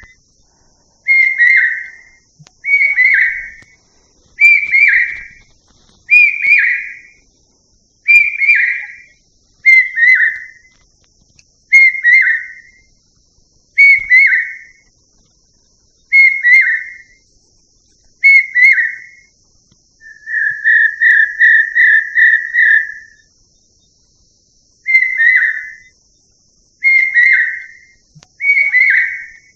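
A loud whistled call, one short dropping note repeated about every two seconds. About two-thirds through, a quick run of five or six short notes takes its place. A faint steady high hiss runs underneath.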